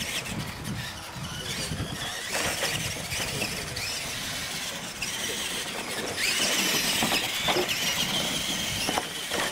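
Radio-controlled monster trucks racing on dirt, their electric motors and gears whining, with the whine rising in pitch and growing louder about six seconds in.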